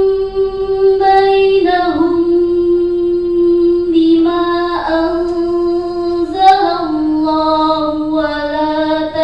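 A teenage girl's voice reciting the Quran in the measured murattal style, chanting in long held notes that step slightly down in pitch, with a short break for breath about halfway through.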